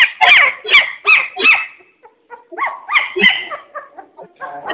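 Young puppies crying: a run of short, high whining squeals, about three a second, breaking off about two seconds in and then starting again.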